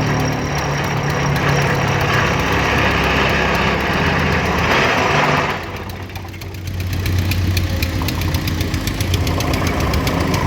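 A vehicle engine running, with a loud rushing noise over it that cuts off suddenly about five and a half seconds in. After that comes a steady low engine hum with a fast clattering knock.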